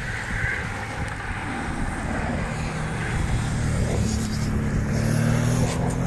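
Wind buffeting the microphone, then from about four seconds in the steady engine hum of a motorcycle and a car passing close by.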